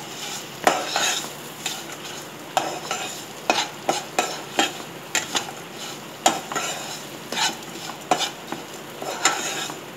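Metal spatula scraping and stirring peanuts and beaten rice around a non-stick kadai in irregular strokes, about one or two a second, over a light sizzle of the mix roasting in oil.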